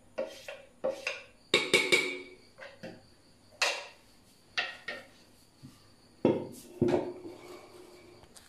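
Metal spoon scraping and knocking against the stainless steel drum of a wet grinder as dosa batter is scraped out into a steel bowl: a string of irregular clinks and scrapes. The louder knocks are about two seconds in and near the end, and one of them rings briefly.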